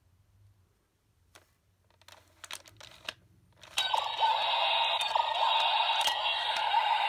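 Bandai Ruebe Gyro toy: a few plastic clicks and scrapes as its grips are pulled and its disc set spinning, then, a little over halfway in, the toy's electronic Ultraman sound effects start through its speaker and carry on steadily.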